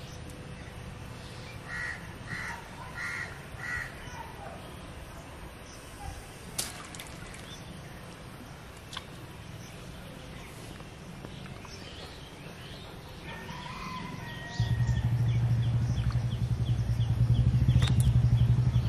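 Crows cawing, four calls in quick succession a couple of seconds in, over a faint outdoor hum. Near the end a loud, steady low drone starts suddenly and becomes the loudest sound.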